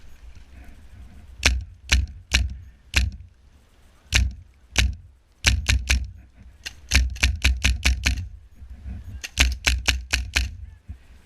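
HPA-powered airsoft rifle firing: about six single sharp shots roughly half a second apart, then three quick strings of shots in rapid succession.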